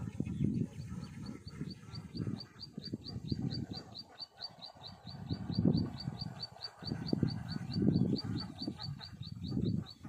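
An animal's call: short high chirps repeated evenly, about four or five a second, starting about a second in. Irregular low rumbling noise comes and goes underneath.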